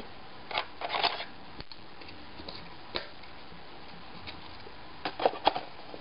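Scattered light clicks and rattles from handling the laptop's parts: a few near the start, one about three seconds in, and a quick cluster about five seconds in, over a steady low hiss.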